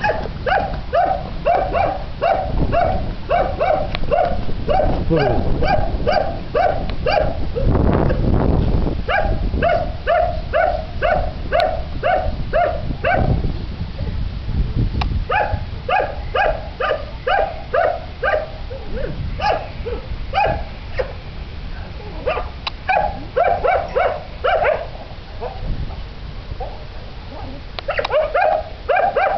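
A dog barking over and over, about three barks a second in runs of several seconds with short pauses between, over a low rumble of wind on the microphone.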